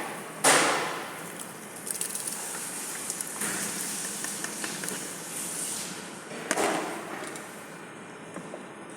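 Cooking noise at a boiling pot on the stove: two sudden loud rushing bursts, about half a second in and again around six and a half seconds, with crackling in between.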